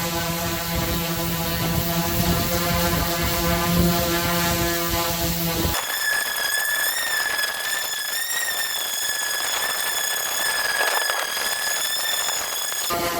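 Electric woodworking power tools running steadily: first a lower motor hum, then, about halfway through, an abrupt switch to a high-pitched whine that cuts off shortly before the end.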